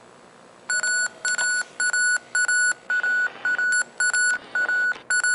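Sony CCD-TRV138 Hi8 camcorder beeping a warning, a quick run of short identical high beeps about two a second, as its tape gear drive fails on playback and it throws a C:31:23 gear drive error.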